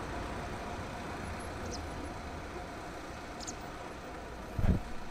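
Steady background rumble and hum of a shop or car-park ambience, with a few faint ticks and a short thump near the end.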